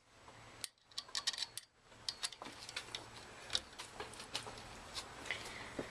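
5 mm Allen key tightening a bolt on a scooter's handlebar collar clamp: a run of light clicks and ticks at irregular spacing as the key turns and shifts in the bolt head.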